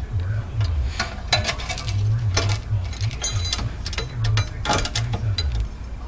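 Irregular metallic clicks and clinks of a wide-nose wrench and C-clamp working on a rear brake caliper as the caliper piston is twisted back into its bore. A short ringing clink comes a little past three seconds. A low, uneven rumble runs underneath.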